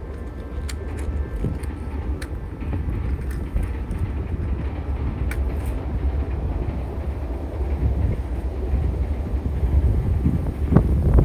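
Strong wind buffeting the microphone: a heavy low rumble that gusts harder toward the end. A few faint sharp clicks sound over it in the first half.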